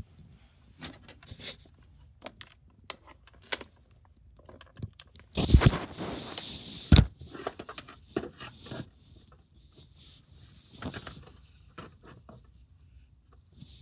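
Handling noise: scattered light clicks and taps, with a louder rustling scrape about five and a half seconds in that ends in a sharp knock.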